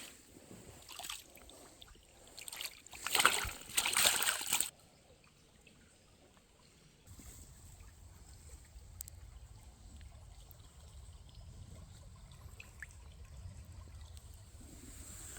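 Water splashing in irregular bursts, loudest about three to four and a half seconds in, then cutting off suddenly; after a short lull a steady low rumble sets in.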